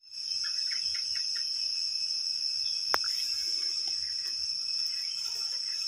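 Insects trilling in a steady, high-pitched drone, with a single sharp click about three seconds in.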